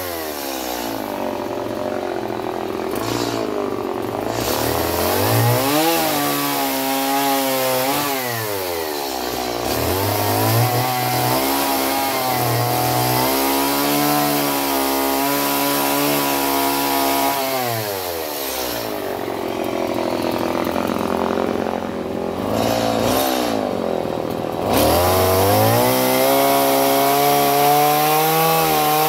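Stihl two-stroke chainsaw cutting into a wood log, its engine pitch dropping and climbing again several times as the throttle is eased and squeezed. In the last few seconds it runs louder at steady high revs.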